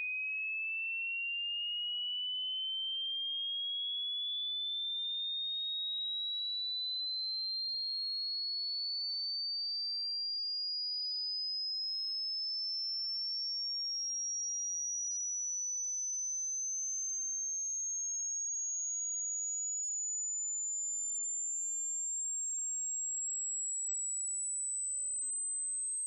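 A single pure electronic test tone gliding slowly and steadily upward in pitch at an even level, from a high whistle to a much higher one: a hearing-test frequency sweep climbing from about 2,500 to about 8,000 hertz.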